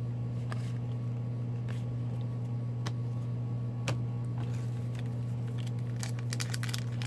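A steady low hum runs throughout, with faint scattered clicks of trading cards being handled. The clicks become more frequent near the end as a foil card pack is picked up.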